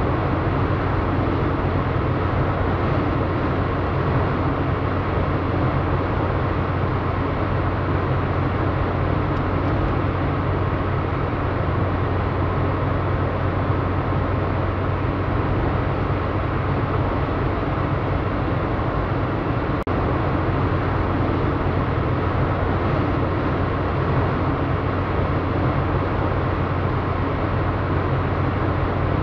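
Steady road noise inside a moving car's cabin: tyre and wind rush with a constant low hum.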